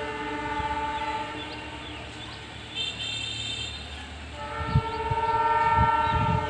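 Locomotive air horn of an approaching train sounding long blasts, a chord of several steady tones, with a break of about two seconds in the middle; the second blast is louder, and low thumps join in near the end.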